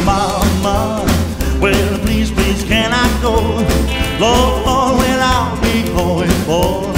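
Rock and roll band playing: a melody line with bending notes over a steady walking bass and drums.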